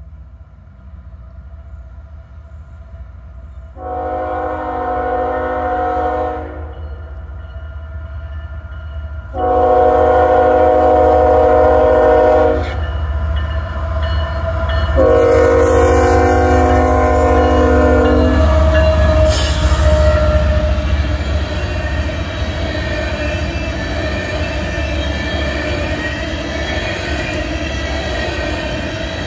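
Freight locomotive's multi-chime air horn sounding three long blasts for a grade crossing. The lead GE ES44AH then passes and the train's coal hoppers roll by with steady wheel noise on the rails, with a sharp bang shortly after the last blast.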